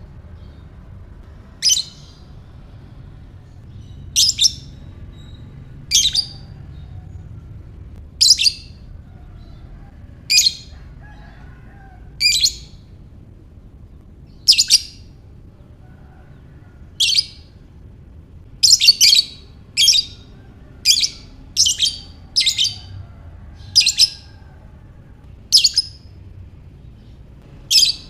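Lovebird giving short, sharp, high chirps, one every two seconds or so, coming quicker, about one a second, in the middle stretch before slowing again.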